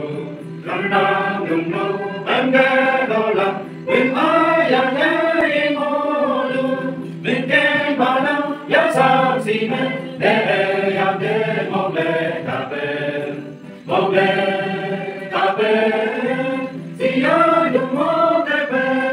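A group of voices singing together in a chant-like song, in phrases of one to three seconds separated by short breaks.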